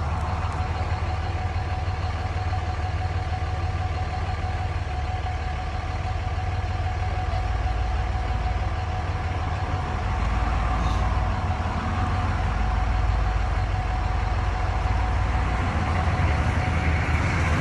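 Truck engine idling, a steady low rumble with a faint steady whine above it, growing a little louder about ten seconds in.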